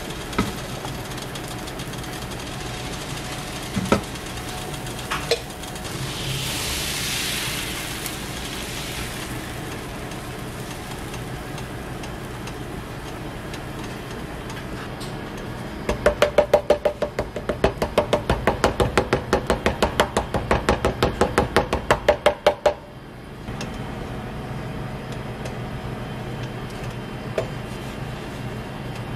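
Steady low mechanical hum with a few single clicks, then a run of rapid, even clicking, about six a second, for roughly seven seconds past the middle.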